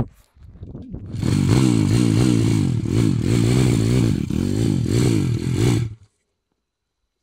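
StompR 140cc pit bike's single-cylinder four-stroke engine revved hard for about five seconds, its pitch rising and falling again and again, then cut off abruptly.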